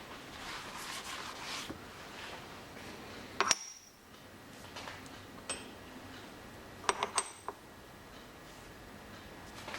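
Steel parts and setup tooling being handled on a milling machine table: a few sharp metallic clinks, the loudest about three and a half seconds in and a quick cluster around seven seconds, with soft handling rustle between.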